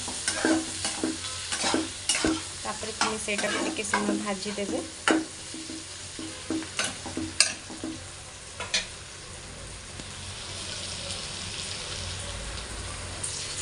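A steel spoon stirs soya chunks, capsicum and onion in a thick sauce frying in a kadai, scraping and clicking against the pan over the first eight seconds or so. After that the stirring stops and only a steady sizzle is left.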